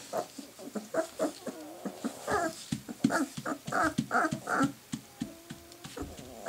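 Three-to-four-week-old Bernese Mountain Dog puppies play-wrestling and mouthing each other, giving short yips, whines and little growls. About three seconds in the calls come in a quick run of about four a second, and a longer whine follows a little before the end.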